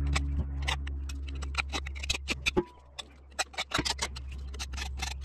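Hand file rasping across the crimped, flattened end of a lead-filled copper pipe, in short strokes about three to four a second, dulling its sharp edges. A low steady rumble runs underneath and drops out for about a second around the middle.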